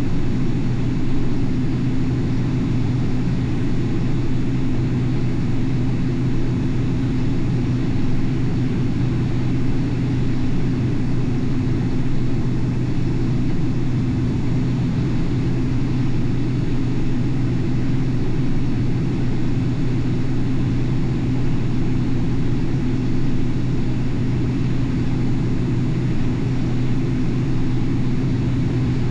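Combine harvester running steadily through corn, a constant low engine drone with a deep hum.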